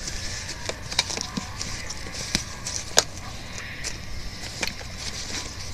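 Rustling and light clicks of a small disposable diaper being fitted onto a plastic baby doll, with one sharper click about three seconds in.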